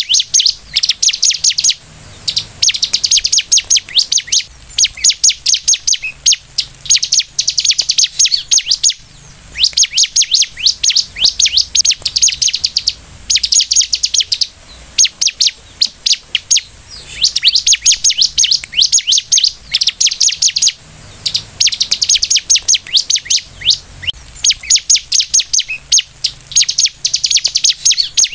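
Bar-winged prinia (ciblek) singing hard: fast runs of sharp, high chirps in phrases of a second or two, repeated again and again with short pauses between.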